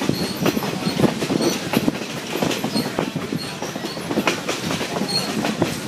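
Passenger coach running along the track, heard from an open window: wheels clicking and rattling over the rails in an uneven patter, with brief high squeaks from the wheels on a curve.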